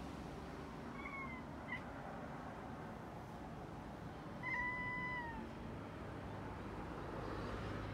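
Domestic cat giving two short chirping meows while staring out at something: a brief one about a second in, then a longer one at about four and a half seconds that holds its pitch and dips at the end, with a small click between them. These are the chattering ('cracking') calls a cat makes at prey it is watching.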